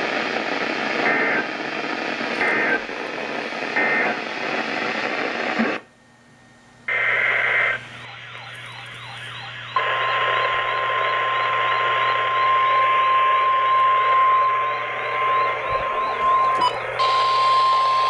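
Weather radio receivers over radio hiss: three short, evenly spaced bursts of SAME digital data tones, the end-of-message code closing a flood statement. After a cut, a single short data burst, then from about ten seconds in the steady single-pitch 1050 Hz NOAA Weather Radio warning alarm tone for an Areal Flood Warning.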